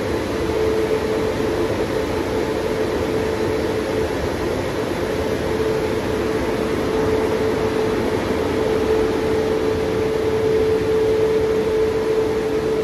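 Christ Vitesse C160 car wash's Turbo Dry blowers running, a steady rush of air with a steady hum over it: the drying stage at the end of the wash.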